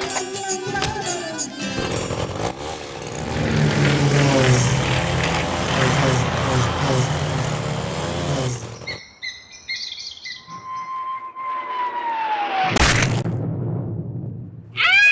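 Cartoon music and sound effects. About eleven seconds in, a whistle glides downward in pitch and ends in a single crash.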